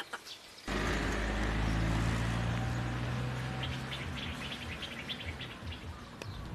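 Birds chirping over a steady low hum, which starts abruptly just under a second in.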